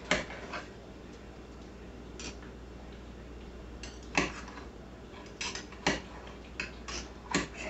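Table knife and fork clicking and scraping against a 9x13 baking pan while slicing soft canned peach halves: a scatter of light, irregular taps, most of them in the second half.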